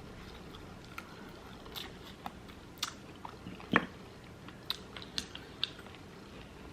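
Close-miked chewing and mouth sounds: scattered soft wet clicks and smacks, with one sharper click a little under four seconds in.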